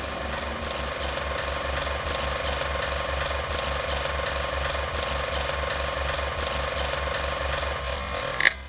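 Old film projector running: a steady mechanical clatter of about three to four clicks a second over a motor hum, stopping with a sharp click near the end.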